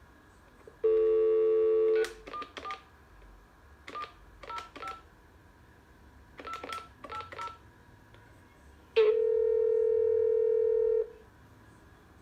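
Landline telephone being dialled: a dial tone for about a second, then the number keyed in as short touch-tone beeps in three quick groups, and a steady line tone for about two seconds near the end.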